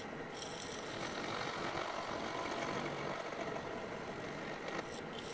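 Milling machine spindle driving a slitting saw through a small metal ring, a steady machining noise as it cuts the slit that lets the part clamp onto a shaft.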